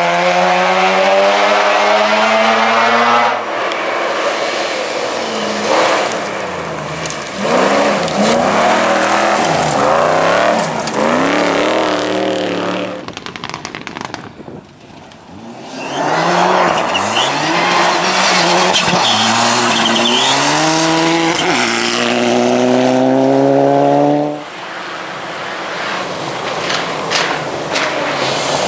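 Classic rally cars at full throttle, engines revving hard as they accelerate and shift through the gears, with a lull about halfway through before another car screams up through the revs; a possible tyre squeal among it.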